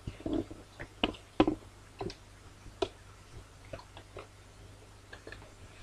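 Paper packaging being handled and unwrapped, with irregular crinkles, rustles and taps; the loudest crackle comes about a second and a half in.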